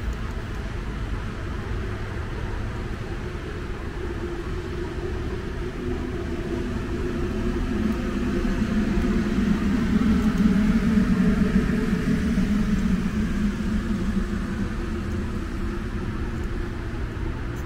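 Low mechanical hum and rumble that swells to its loudest near the middle and then eases off, over steady urban background noise.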